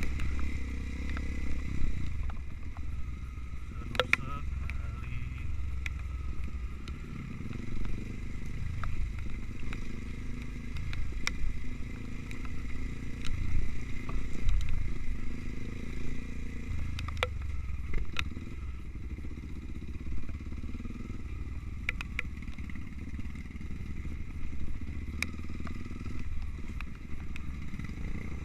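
Trail motorcycle engine running at low, varying revs, with scattered sharp clicks and knocks throughout.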